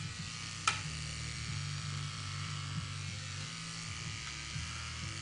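Corded electric hair clippers buzzing steadily as they shave a head close, the hum wavering as the blades work through the hair. There is one sharp click a little under a second in.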